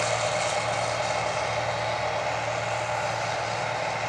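A heavy engine running steadily, with an even hum and no change in speed.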